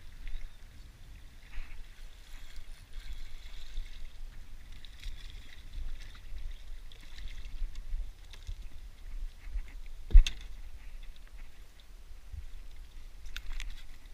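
Wind rumbling on the microphone over water lapping at the dock, with faint rustling and one sharp knock about ten seconds in, the loudest sound, followed by a few light clicks near the end.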